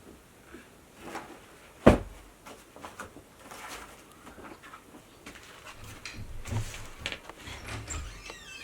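A sharp knock about two seconds in, followed by scattered lighter clicks and knocks, like things being handled or set down.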